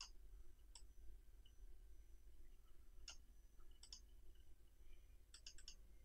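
Faint computer mouse clicks, scattered and several in quick succession near the end, over near-silent room tone.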